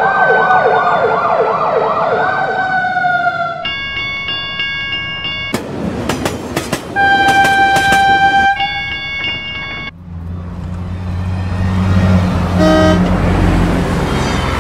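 Dubbed vehicle sound effects: an emergency-vehicle siren wails with a fast warble for the first few seconds, then come steady horn chords, a train rattling past with sharp clicks and a single horn blast, and from about ten seconds in a low, steady bus-engine hum with traffic noise.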